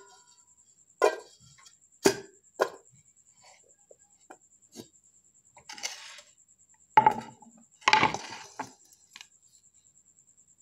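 Sliced ginger pieces being put into a cooking pot: a few sharp separate knocks, then short clattering spells in the second half.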